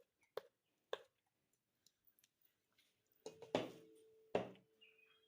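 Light clicks of a metal spoon against a cooking pot, then two louder knocks about three and a half and four and a half seconds in, with a faint steady hum under them.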